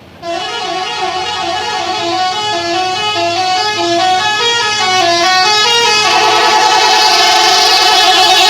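A Mustika Holiday bus's telolet horn plays a fast melody of changing notes, then holds a chord near the end, growing louder throughout. It cuts in abruptly about a quarter second in.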